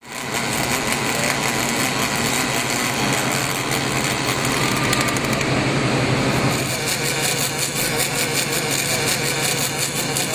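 Robotic MIG welding arc on aluminium, a steady hiss over a constant low hum. The sound changes about two-thirds of the way through, where a second weld takes over.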